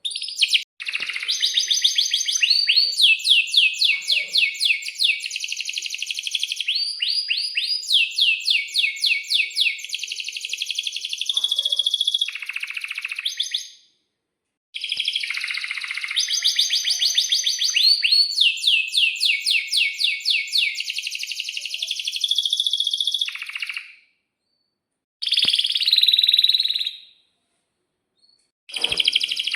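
Domestic canary singing long, loud song phrases made of rapid trills, or rolls, of quickly repeated high notes. There are two long bouts, about thirteen and nine seconds, each broken off abruptly, then a short phrase near the end.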